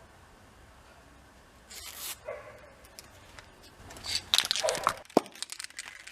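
A dog gives two short barks, among a brief hiss and some clattering and clicking.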